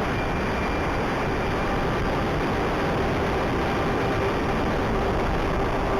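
Steady driving noise from inside a Mahindra TUV300: a constant engine hum under an even rush of road and tyre noise.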